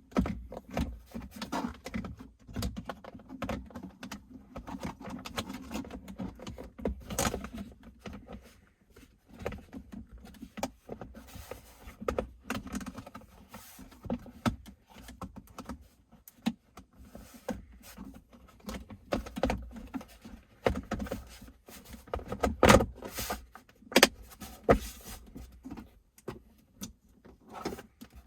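Irregular clicks, knocks and rattles of hands working plastic interior trim and tucking wiring into place.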